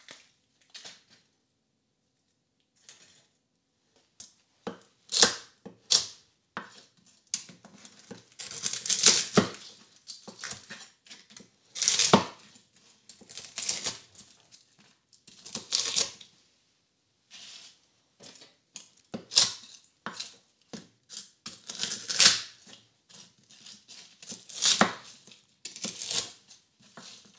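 Crisp deep-fried pig-ear crackling crunching: a long run of irregular, sharp crunches and cracks, some in quick clusters, with short pauses between.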